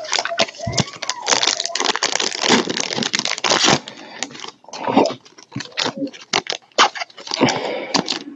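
Foil trading-card pack wrappers being torn open and crinkled: a dense run of tearing and crackling with many sharp clicks, heaviest in the first half.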